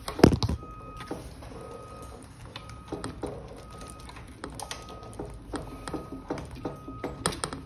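Handling noises from working on an electric bike: a sharp knock about a quarter second in, then scattered clicks and light rattles. A faint beep repeats about once a second behind it.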